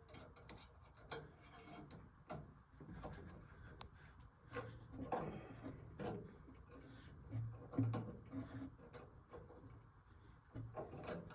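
Faint, scattered clicks, taps and rubbing from a light wire being looped through the corner ear of an LED ceiling panel and twisted up around a roofing nail, with a few soft knocks.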